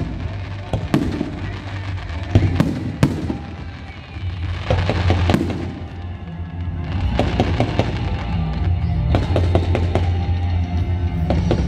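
Fireworks going off in a display: a run of sharp bangs and crackles at irregular intervals, over music with a steady bass that comes up more strongly from about halfway through.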